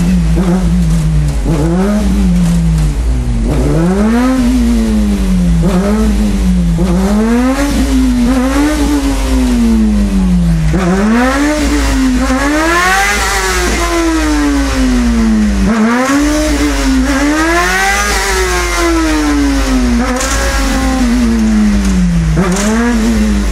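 Honda sport motorcycle engine being revved over and over with the bike held upright on its rear end, the revs climbing and dropping every one to two seconds, with a few higher blips partway through.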